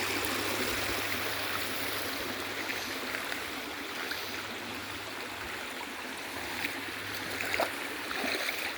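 Steady rush of a stream running over rocks. A few light clicks in the second half.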